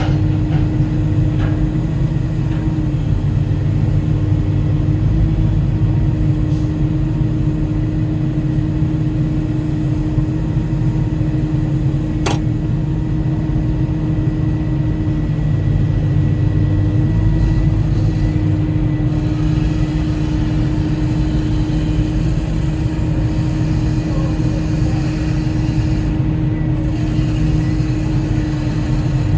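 Volvo 140E excavator's diesel engine running steadily under work, a constant low drone with a steady hum. One sharp click about twelve seconds in.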